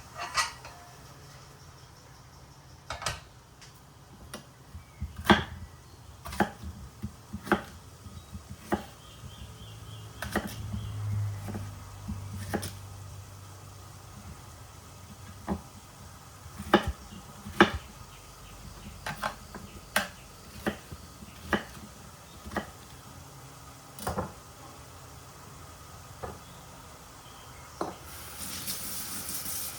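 Kitchen utensils and dishes being handled: irregular knocks and clinks, a few much sharper than the rest. A steady hiss starts near the end.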